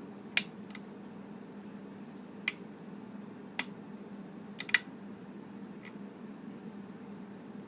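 Metal hook pick clicking against the pins inside a Yale pin-tumbler lock held under tension: about seven sharp, irregular clicks as pins are lifted and set, the loudest a little under five seconds in, over a low steady hum.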